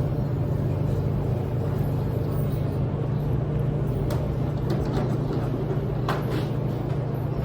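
Steady low hum of laundromat washers and dryers running, with a few faint light knocks about four and six seconds in.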